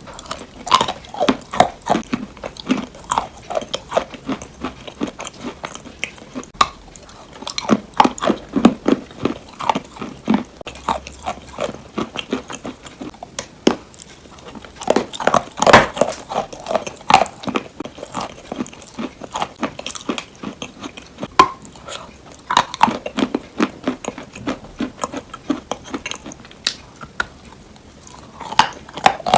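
Close-miked ASMR crunching and clicking sounds, coming in dense, irregular clusters of short crackles.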